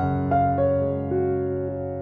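Background piano music: a slow melody of a few held notes that change about every half second and slowly fade.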